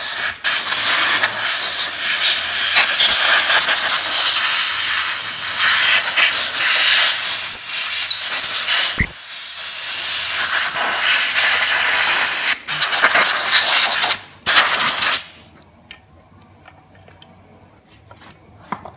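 Compressed-air blow gun hissing in long blasts, blowing off a freshly wet-blasted aluminium scooter crankcase. There are a few brief breaks in the blast, and it stops for good about three-quarters of the way through.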